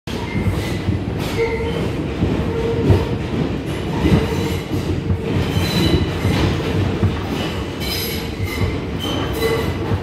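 R142 New York subway car running through a tunnel, heard from inside the car: a steady rumble of wheels on rail, with high-pitched wheel squeals that come and go and occasional knocks.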